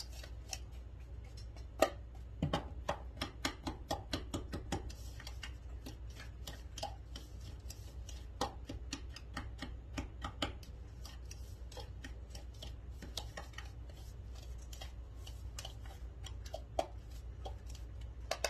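A utensil clicking against a plastic bowl while a dry brown-sugar spice rub is stirred: a quick run of small taps for several seconds, thinning out to occasional ones later on.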